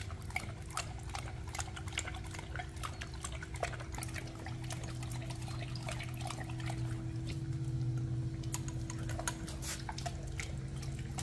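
Great Dane lapping and slurping water from a running garden hose nozzle, with irregular splashing and dripping.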